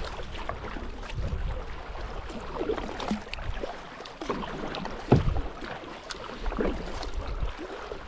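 Kayak paddle strokes splashing irregularly in the river water, with wind rumbling on the microphone. A sharp knock, the loudest sound, comes about five seconds in.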